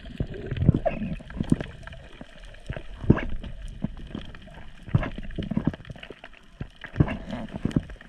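Underwater sound from a submerged camera: muffled gurgling and bubbling water with several irregular knocks and thumps.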